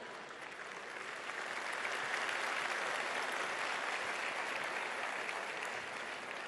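A large audience of students applauding, the clapping swelling to its loudest a couple of seconds in and then slowly dying away near the end.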